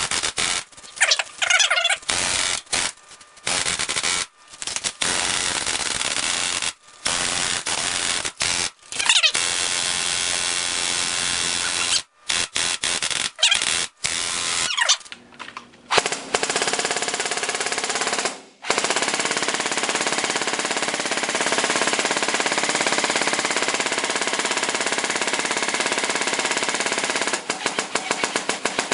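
Lancer Tactical M4 airsoft electric gun running on an 11.1 V LiPo and firing full auto, its gearbox cycling in repeated rapid bursts with short pauses. Then it fires one long unbroken burst of about ten seconds, and near the end the firing breaks into distinct, evenly spaced shots. The gun is being overdriven in a stress test, with its motor overheating and smoking.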